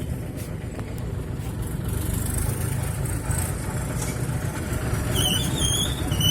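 A bulldozer's diesel engine running steadily with a low rumble. Three short, high wavering squeaks come near the end.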